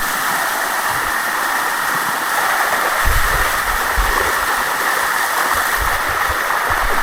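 Water of a cascading waterfall rushing steadily over rock close by.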